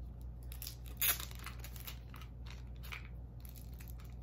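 Gift packaging being opened by hand: a string of short crinkling, tearing rustles, the sharpest about a second in.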